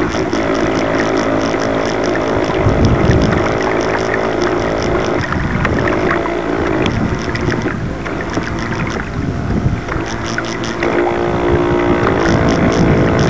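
Radio-controlled model boat's motor running steadily on the water, heard from on board, with water rushing along the hull. Its pitch shifts a couple of times as the throttle changes.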